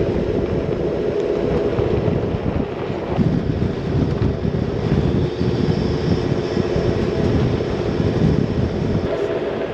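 Vehicle driving on an unsealed gravel road, its steady engine drone over a rough tyre rumble on the gravel, with wind buffeting the microphone.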